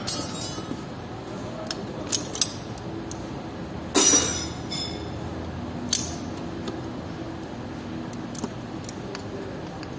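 A few sharp metallic clinks as piston and connecting-rod parts are worked into an engine block by hand, the loudest a short clatter about four seconds in, over a steady background noise.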